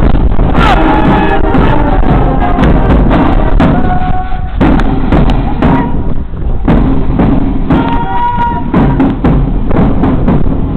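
Marching music with a steady drumbeat and held melody notes, playing for troops marching on parade.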